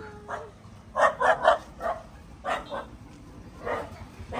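Short animal calls: three in quick succession about a second in, then single calls at about two and a half and nearly four seconds.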